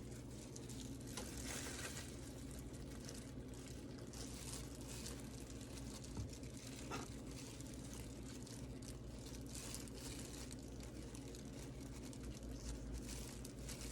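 Faint, steady sizzling and light crackling of Texas toast browning in a hot pan, over a low hum.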